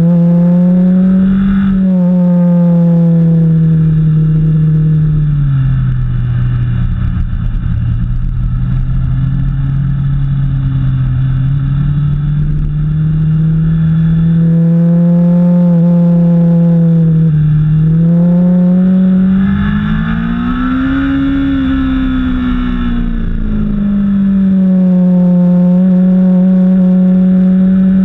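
Vehicle engine running hard through track corners. Its pitch sinks about a fifth of the way in and stays low for several seconds, dips briefly, then climbs to a peak about three quarters of the way through before settling as the throttle changes.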